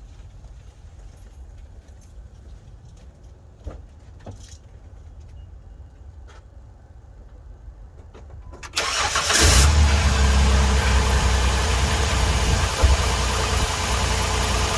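A few faint clicks, then about nine seconds in the 2006 Chrysler Town and Country's V6 engine cranks briefly and starts on its new battery, settling into a steady idle.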